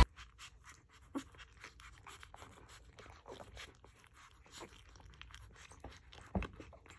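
Newborn Doberman puppies suckling and jostling at their mother's teats: a steady string of soft, wet clicks and smacks, with a brief squeak about a second in.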